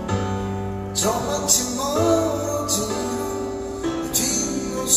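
A man singing a slow ballad into a microphone over amplified backing music: held chords, a bass note that changes every couple of seconds, and several bright cymbal-like hits.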